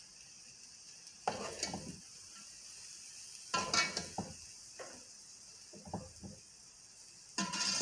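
A steel slotted spoon stirs boiled rice into sizzling okra masala in a metal pot, scraping against the pot in four or five strokes over a steady hiss.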